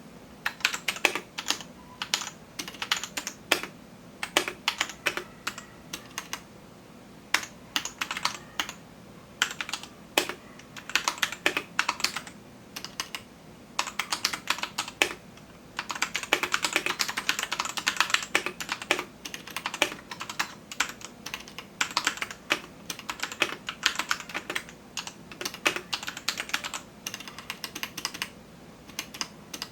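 Typing on a Royal Kludge RK84 mechanical keyboard: irregular key clacks in short runs and pauses, with a fast, dense run of keystrokes a little past the middle.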